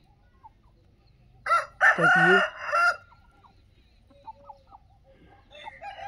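A rooster crowing once, a loud call of about a second and a half starting about a second and a half in, followed by faint short clucks from the flock.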